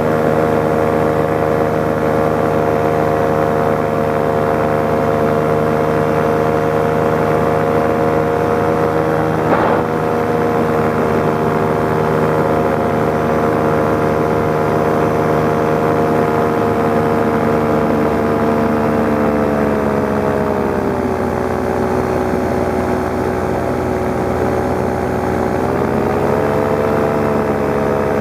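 Paramotor engine and propeller running at steady power; past the middle the throttle is eased and the pitch drops, then it rises again near the end. A brief click about ten seconds in.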